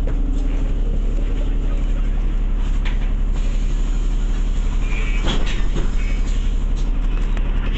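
Bus engine running, heard from inside the passenger cabin as a steady low drone, with a few short clicks and rattles about five seconds in.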